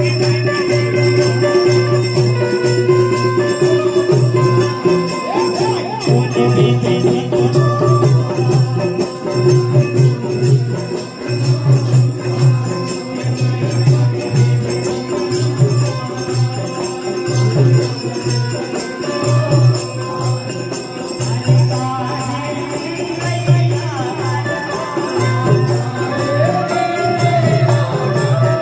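Devotional bhajan music from a Mata jagran: a regular drum beat under a long held tone and a melody line.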